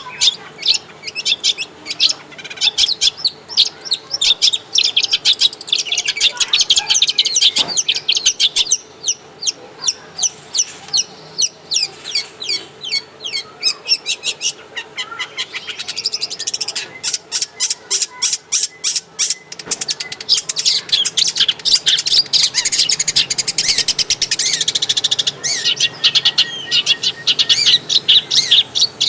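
Long-tailed shrike (cendet) singing a fast, varied, chattering song of high scratchy notes. About halfway through comes a quick run of even, ticking notes before the warbling resumes.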